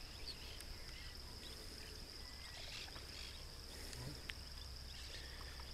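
Quiet outdoor background with a steady high-pitched whine, a low hum and a few faint clicks.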